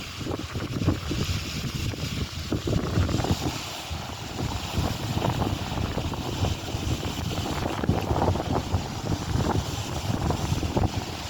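Wind buffeting the microphone in uneven gusts, a rough rumble with a hiss over it.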